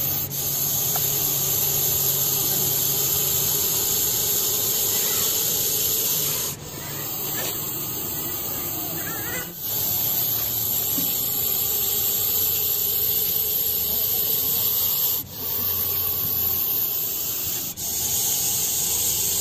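A large Russell's viper hissing loudly and steadily, a sound like a pressure cooker's whistle, with four brief breaks.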